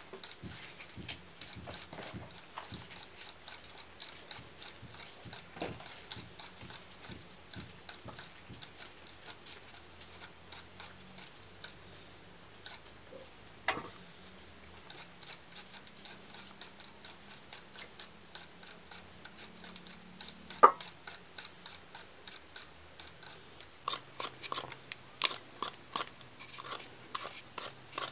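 Raw potatoes being peeled by hand with a peeler and a knife: short scraping strokes of the blades on the skins, a few a second, with one louder knock about two-thirds of the way through.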